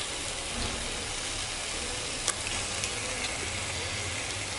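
Onion-tomato masala sizzling steadily in a pressure cooker as raw mutton pieces are added, with a sharp click a little over two seconds in and a fainter one shortly after.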